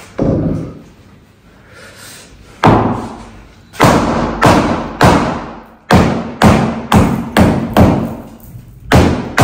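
Hammer blows driving a chisel into the tiled underside of a brick-and-concrete kitchen hood, chipping it apart. There are a dozen or so sharp strikes: a couple spaced well apart at first, then quickening to about two a second.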